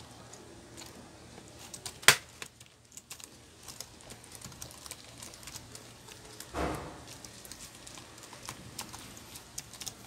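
Keys on a Lenovo ThinkPad T430 laptop keyboard clicking in irregular bursts as it is typed on, with one loud sharp click about two seconds in and a short low thump about six and a half seconds in.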